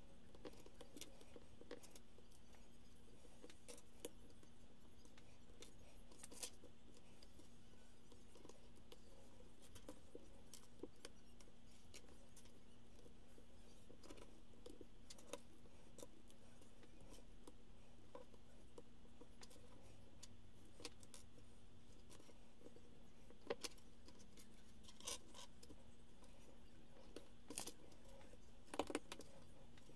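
Plastic Lego bricks clicking and clattering on a wooden table as loose pieces are picked through and snapped together, with scattered light clicks and a small burst of them near the end.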